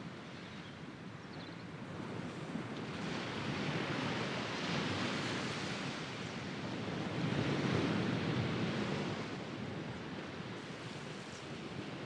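Small sea waves breaking and washing up a sandy beach. The surf swells twice, about four and eight seconds in, then eases off.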